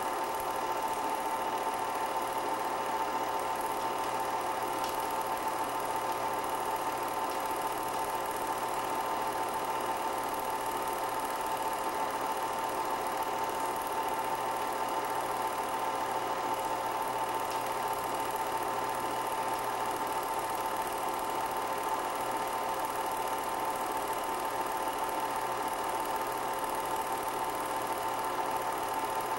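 Film projector running: a steady mechanical whir with a constant hum, unchanged throughout.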